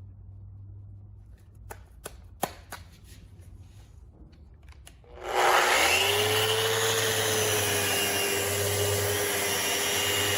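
A few light clicks and taps, then about halfway through a Festool RO 150 random-orbit sander and its dust extractor start up and run steadily. Their motor whine rises briefly as they start and then holds.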